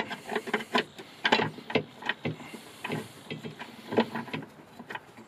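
A bolt being fed through its hole and threaded by hand into the rear strut mounting of a Mini R50: a run of irregular metal clicks and clinks.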